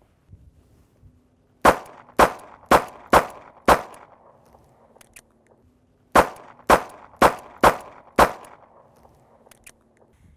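Handgun fire in two strings of five shots, each shot about half a second apart, with a pause of about two seconds between the strings. The second string is a Smith & Wesson Model 638 .38 Special snub-nose revolver emptying its five-round cylinder. Both strings fire without a stoppage even though the guns are clogged with dryer lint.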